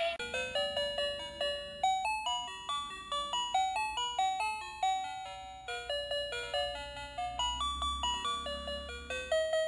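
Battery-operated light-up triceratops toy playing its built-in electronic tune: a quick melody of short, bell-like notes, each struck and fading.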